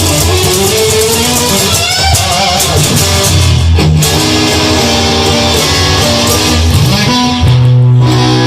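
Instrumental passage of a rock song, led by guitar over a bass line, with a new low bass note coming in near the end.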